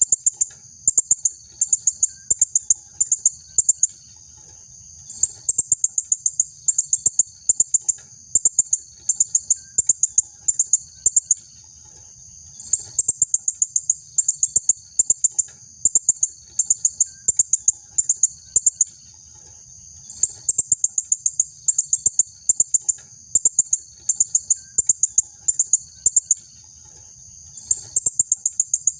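Female blue-crowned hanging parrot (serindit) calling: sharp, high-pitched notes repeated several times a second in long runs broken by brief pauses.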